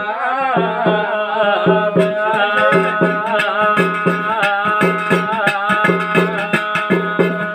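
Garhwali jagar devotional folk music: a voice holding long, wavering notes over a steady drum beat, with sharp metallic strikes joining about two seconds in.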